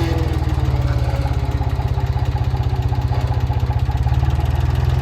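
Bulldozer engine running steadily at idle with a fast, even throb.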